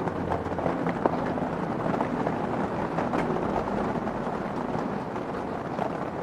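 Small scattered taps and scrapes of hands working soil and sand around a succulent in a pot, over a steady outdoor background hiss.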